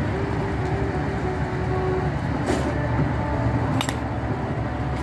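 A softball bat striking a pitched softball with a sharp crack about four seconds in, after a lighter knock a little earlier, over a steady low rumble and hum.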